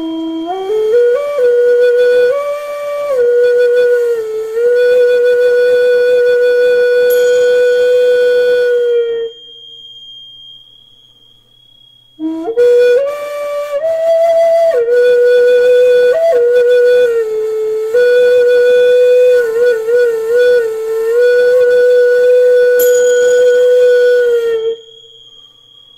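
A flute playing slow, held notes in two long phrases. Each phrase slides up into a steady note and then steps between a few pitches, with a wavering passage in the second phrase, and there is a pause of about three seconds between them. A thin, high, steady ringing tone sounds underneath throughout.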